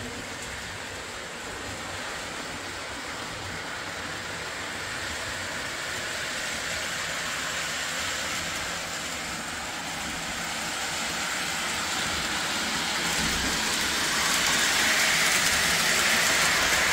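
Lionel O27 Reading steam locomotive pulling a string of MTH Rail King passenger cars along three-rail track: a steady whir and rumble of wheels and motor on the rails. It grows steadily louder as the train nears and is loudest in the last few seconds.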